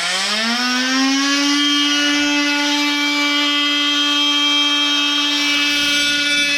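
Oscillating multi-tool speeding up over about the first second, then running at a steady high whine while cutting an old stuck fitting so it can be split off.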